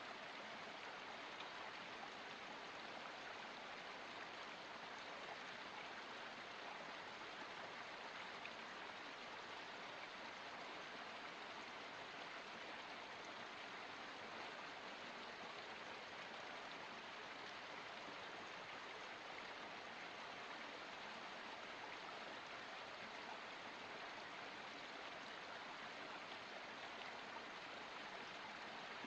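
Water of a forest spring flowing in a small stream: a steady, even rush with no breaks or changes.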